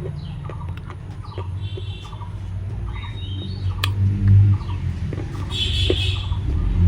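Birds chirping, short high calls, over a steady low rumble, with a sharp click about halfway through.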